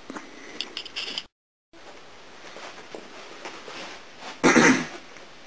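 Light handling clicks and rustle from a braided rope, a brief dropout to dead silence, then a single short cough about four and a half seconds in.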